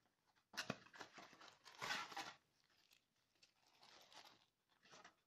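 Packaging being handled: a sharp tap as the cardboard box insert is lifted out, then rustling and crinkling as the micro USB cable in its plastic bag is taken out.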